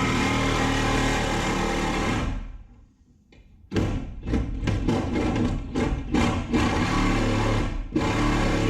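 MIG welder on steel frame metal: one continuous weld that stops a little over two seconds in, then after a short pause a quick series of short stop-start stitch welds.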